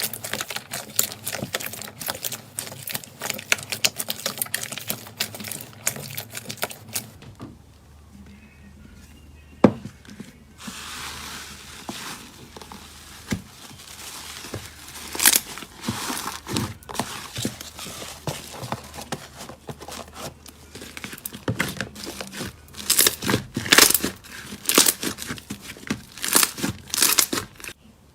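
Slime being squeezed and pressed by hand, making a dense stream of crackling, clicking and popping sounds. It goes quieter for a few seconds after about seven seconds in, with one sharp pop, then the crackling returns with louder clusters of pops near the end.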